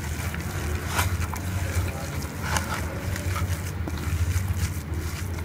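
A hand kneading and mixing coarsely ground moong dal paste with spices in a plate: faint soft squelches and scrapes, heard over a steady low hum.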